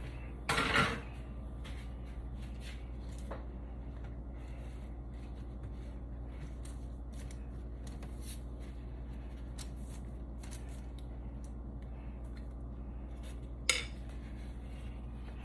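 Kitchen dishes and utensils clattering as things are cleared away: a short clatter about half a second in, a sharp clink near the end, and faint small knocks between, over a steady low hum.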